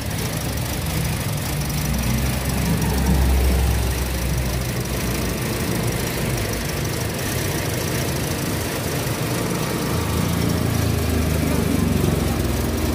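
Toyota Vios engine idling roughly and very loud, swelling in speed a few seconds in and again near the end: an unstable idle.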